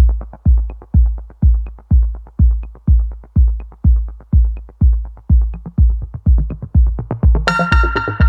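Electronic background music: a heavy kick drum about twice a second with light ticks between, joined by a bright sustained synth chord near the end.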